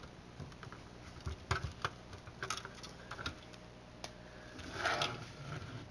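Scattered small clicks and taps of a screwdriver working screws out of a plastic device being taken apart, with a short scrape about five seconds in.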